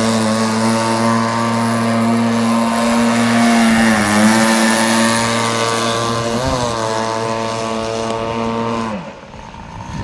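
Quarter-scale RC jet boat's 30cc Zenoah two-stroke petrol engine running at high revs. Its pitch dips briefly twice, about four and six and a half seconds in, then the revs fall away and it goes much quieter near the end.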